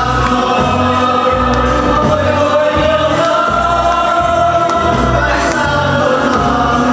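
Background music: singing in long held notes over a steady low beat.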